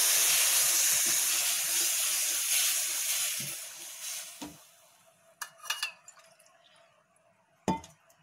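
Water poured into a hot pan of ghee-roasted semolina, hissing and sizzling loudly in a burst of steam, then dying away over about four seconds. A few light clicks follow, with a sharp knock near the end.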